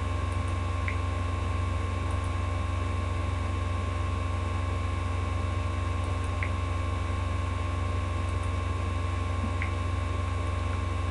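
Steady low electrical hum with even background hiss and a thin steady whine, with a few faint clicks scattered through it.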